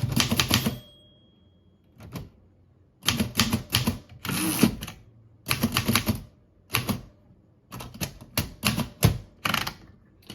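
Remington Rand De Luxe Model 5 manual typewriter being test-typed: a fast run of keystrokes, a brief ringing tone about a second in, then short bursts and single key strikes with pauses between them.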